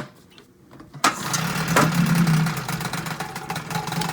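1962 Sea King 5 hp two-stroke outboard motor starting after a sharp click and catching about a second in, then running steadily.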